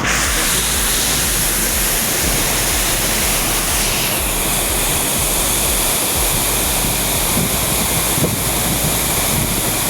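A waterfall pouring, heard close up as a loud, steady rush of falling water.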